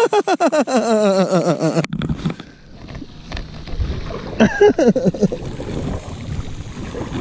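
A person's voice in a quick run of pulses falling in pitch, cut off abruptly about two seconds in. Then a steady rush of wind and water around a kayak, with a brief voice near the middle.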